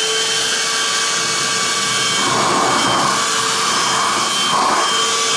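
Homasy cordless handheld wet/dry vacuum running at full speed with a steady motor whine, sucking up spilled juice through its rubber attachment. A rougher rushing sound joins in about two seconds in as liquid is drawn in, easing off near the end.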